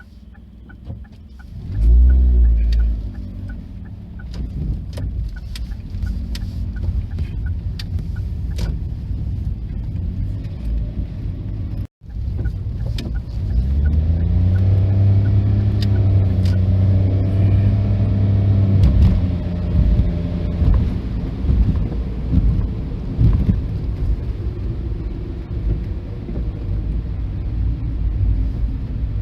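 Diesel train engine running as it passes a level crossing, with sharp clicks over the steady drone. The sound breaks off suddenly about twelve seconds in, and in the following pass the engine note rises and then holds steady.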